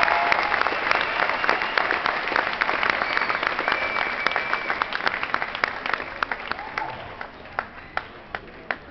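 Audience applauding: dense clapping at first that thins out and dies away, leaving a few scattered claps near the end.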